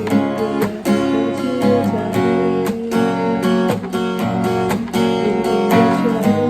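Acoustic guitar played instrumentally: strummed chords with short, sharp strokes several times a second and a melody line running over them.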